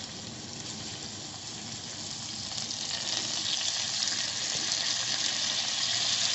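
Finely chopped onions frying in hot oil on a tawa griddle: a steady sizzle that grows gradually louder.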